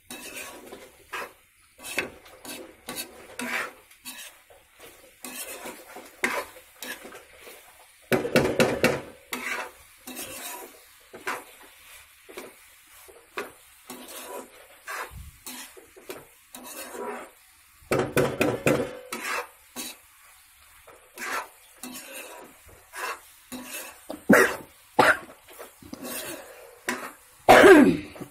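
A spatula stirring macaroni in a steel pan, clicking and scraping against the metal over and over, with louder, longer scrapes about eight, eighteen and twenty-seven seconds in.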